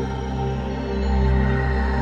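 Ambient background music: sustained, drone-like tones over a deep bass.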